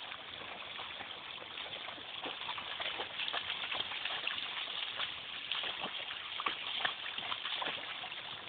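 A dog splashing about in a shallow creek, with many small, irregular splashes over the steady rush of the flowing water.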